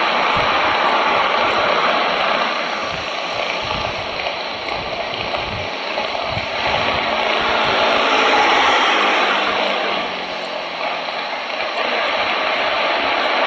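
Jet engines of a wide-body twin-engine airliner running at low taxi power as it rolls slowly, a steady rushing noise that dips and swells a little, with a faint low hum sliding down in pitch near the middle.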